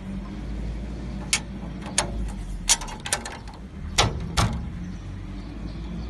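Metal cover being fitted onto a glass door's patch hinge: a series of sharp clicks and taps, about eight of them, the two loudest about four seconds in.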